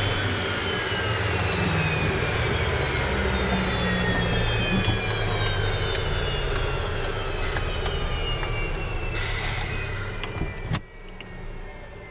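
Jet fighter's engine spooling down after shutdown: a high turbine whine falling steadily in pitch over a low rumble. A short burst of hiss comes near the end, then the sound drops away suddenly.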